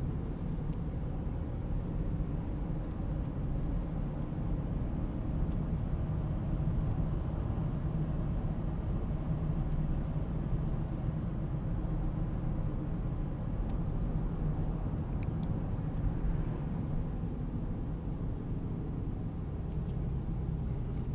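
Steady car engine and road noise while driving slowly, a low even rumble with a faint hum.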